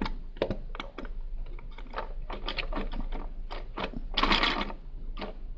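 Small plastic Lego pieces clicking and clattering as they are handled and pressed together: irregular clicks, with a brief louder rattle about four seconds in.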